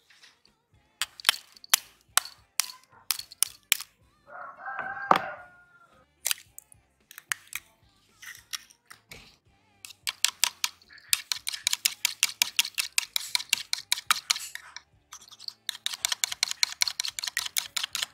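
An egg tapped several times against the rim of a small bowl to crack it, with a short squeaky tone about four seconds in. From about ten seconds in, a small wire whisk beats the egg, its wires clicking rapidly against the bowl in two long runs with a brief pause between them.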